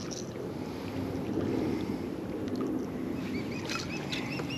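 Steady low wind-and-water noise around a kayak. Near the end a bird starts calling in short repeated chirps.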